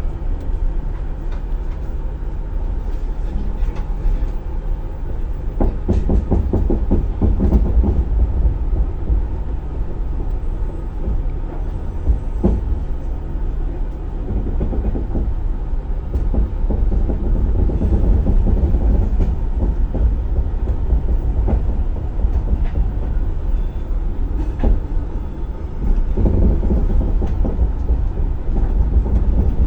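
Passenger train running on the rails: a steady low rumble, with wheel clacks over rail joints coming in groups every few seconds and getting louder near the end.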